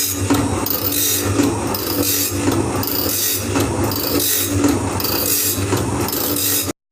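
Factory machine noise: a steady low hum under repeated rasping, scraping strokes, like a power tool working material. It cuts off abruptly just before the end.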